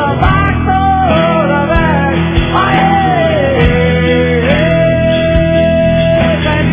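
A song: a voice sings over guitar and a steady drum beat, holding one long note in the second half.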